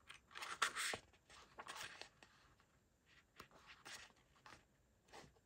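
Sheets of a pad of printed craft paper being handled and flipped: several short paper rustles, the loudest within the first second, then fainter ones.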